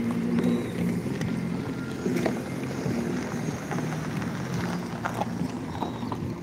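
Street noise: a steady engine hum with irregular sharp clicks over it.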